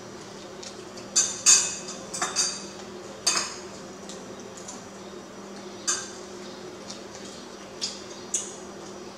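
A metal spoon clinking against ceramic plates during a meal: about eight short, sharp clinks at uneven intervals over a faint steady hum.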